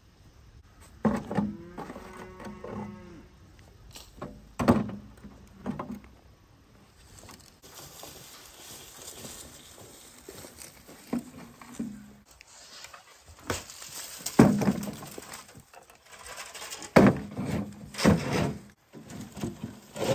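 A cow mooing once, a drawn-out call about a second in, with a series of knocks and thumps before and after it.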